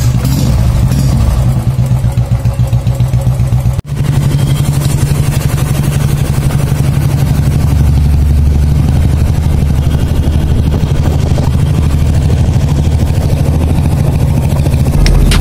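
Royal Enfield Classic 350 single-cylinder engine running through an aftermarket long-bottle silencer, first as an evenly pulsing thump at idle, then after a cut about four seconds in as a steady engine note.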